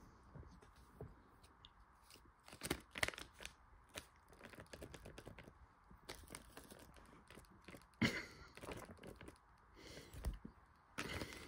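A chocolate wrapper crinkling and crackling in short, irregular bursts as a cat paws and swats at it. The loudest burst comes about eight seconds in.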